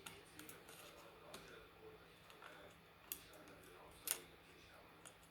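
A few faint, sharp clicks and taps against near-silent room tone, the loudest two about three and four seconds in: small parts and tools being handled during the tablet repair.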